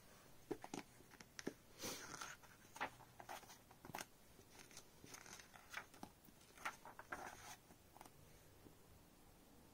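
Faint rustling and crinkling of paper as the cover and first pages of a softcover picture book are turned by hand: a dozen or so short, crisp rustles that stop near the end.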